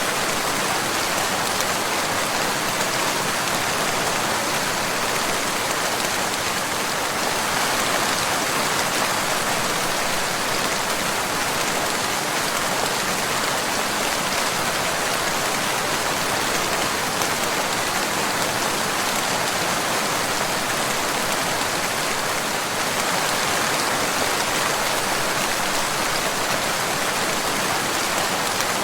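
Steady, heavy rain falling: an even, unbroken hiss with no change in strength.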